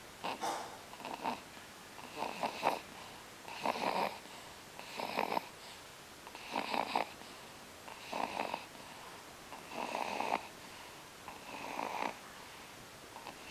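Steady rhythmic snoring: about nine short, rasping snores, roughly one every one and a half seconds.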